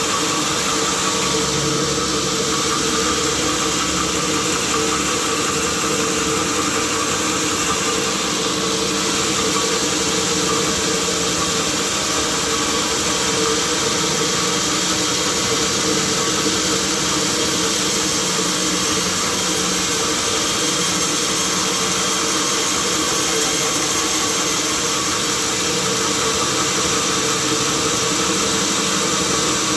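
Sawmill machinery running steadily: a constant mechanical drone with a steady hum, unchanging throughout.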